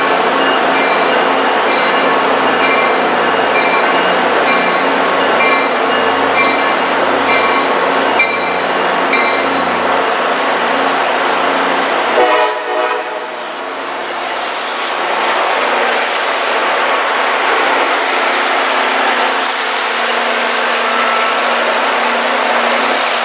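A train passing close by: a loud steady rumble of wheels on rail with a thin high squeal and a regular ticking about every two-thirds of a second in the first part. The sound changes abruptly about halfway through, and the squeal fades a few seconds later.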